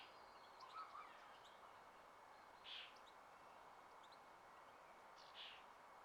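Faint outdoor spring ambience: a steady soft hiss with scattered short bird calls, a few small chirps about a second in and a brief call near the middle and again near the end.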